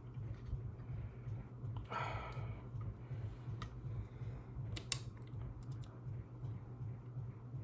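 Lego pieces being handled: scattered small plastic clicks and a brief rustle about two seconds in, over a steady low hum.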